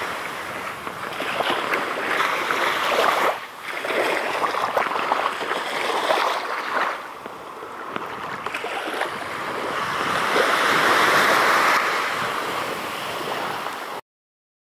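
Gentle surf washing onto a sandy beach, the wash swelling and ebbing every few seconds. It cuts off suddenly near the end.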